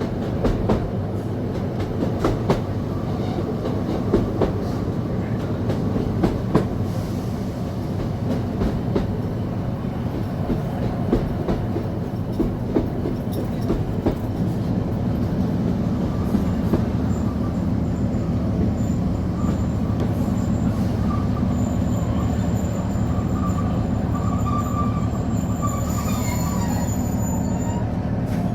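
Class 153 diesel railcar running at speed, heard from on board: its underfloor diesel engine gives a steady hum, and through the first half the wheels click over rail joints. About halfway in, a thin high-pitched squeal from the wheels comes in and holds until near the end.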